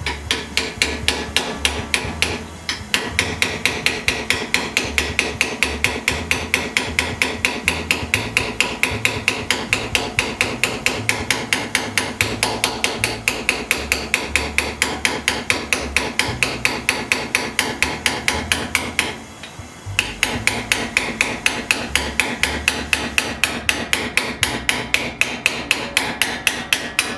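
A hammer drives a flat cold chisel to shear sheet steel off along the jaw of a cast iron bench vise. The sharp, ringing metal blows come fast and even, about four a second, with a short break about two thirds of the way through.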